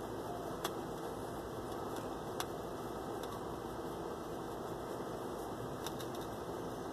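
Malt liquor poured slowly from an aluminium can into a glass, a steady trickle and fizz with a few faint sharp clicks.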